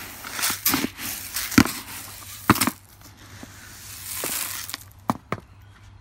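A metal scoop digging into dry mixed birdseed in a plastic bucket: several sharp scrapes and knocks in the first few seconds, a stretch of seed rustling and shifting about four seconds in, and two light clicks near the end.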